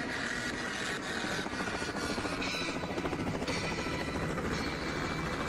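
Helicopter approaching to land, its rotor and engine running steadily.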